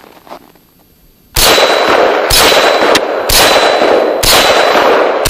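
Norinco M305 semi-automatic rifle in .308 Win firing shots about a second apart, starting about a second and a half in. Each shot is loud, with a long echoing tail that carries into the next.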